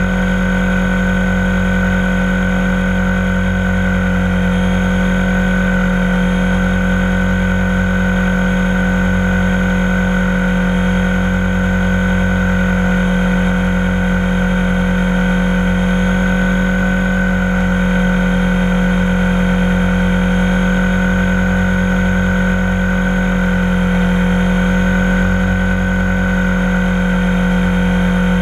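Electric T-Rex 450-clone RC helicopter in flight, heard from a camera mounted on it: the motor, gears and rotors run with a loud, steady whine whose pitch barely changes.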